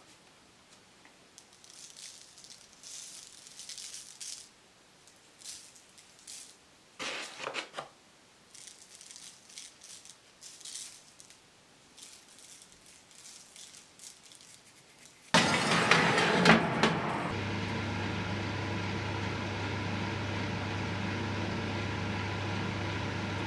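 Faint rustling and light handling for about fifteen seconds, then a sudden clatter and a steady mechanical hum with a low drone, like an oven fan running, that holds to the end.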